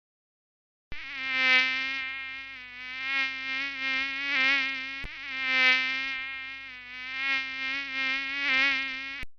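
Mosquito whine in flight: a high-pitched buzz that swells and fades several times, as if passing close by, its pitch wavering slightly. It starts about a second in and cuts off abruptly near the end.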